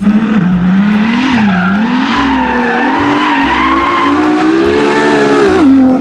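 Ferrari LaFerrari's V12 engine under hard driving, one loud continuous engine note whose pitch rises and falls, then drops away near the end.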